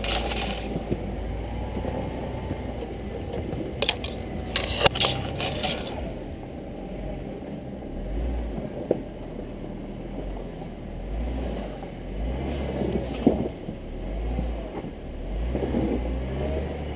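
An off-road vehicle's engine running with a low rumble that rises and falls as it works over the terrain, with a few sharp clanks and scrapes about four to six seconds in.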